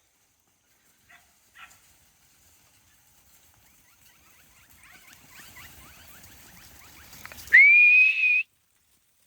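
A stockman's whistle command to a working dog: one loud note that sweeps up and then holds for about a second before cutting off suddenly, near the end. Before it, faint scuffling noise builds up.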